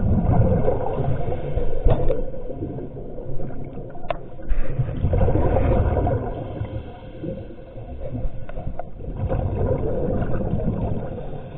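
Underwater water noise, gurgling and rushing in swells every few seconds, with a few short clicks.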